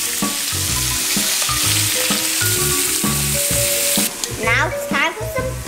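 Speckled trout frying in butter in a pan, a steady sizzle that breaks off about four seconds in.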